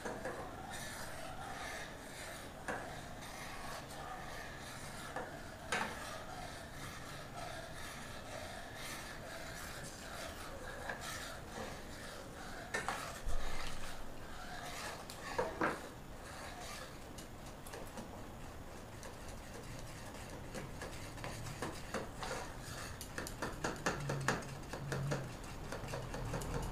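Steel spoon stirring milk and custard in a stainless-steel saucepan, rubbing against the pan with a few sharper clinks scattered through.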